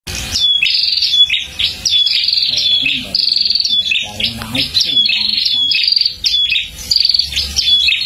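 A pair of caged prenjak (prinias) calling back and forth in a dense run of sharp, high chirping phrases that follow one another with hardly a pause.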